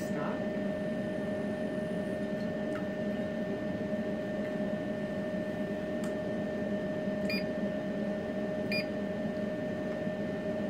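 Steady electrical hum with a thin high whine from ultrasonic cavitation machines, with two short electronic beeps about a second and a half apart in the second half.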